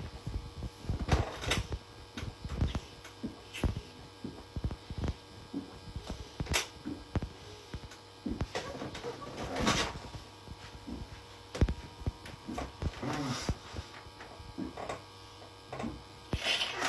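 A man gulping water straight from a bottle: short, irregular swallowing thumps, about one or two a second, over a steady electrical hum.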